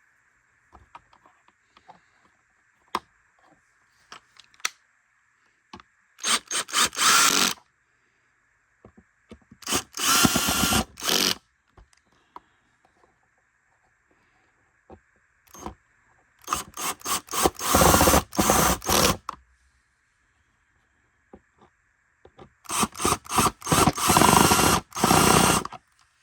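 A cordless drill-driver drives the screws of a vacuum's brush plate back in, in four runs of about one and a half to three seconds. Each run starts with a few quick stop-start trigger blips. Small clicks of handling come in between.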